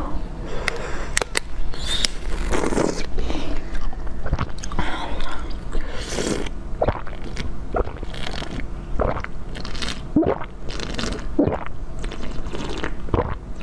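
Close crunching bites and chewing of frozen jelly sweets, with sharp cracks at irregular intervals as the frozen pieces break.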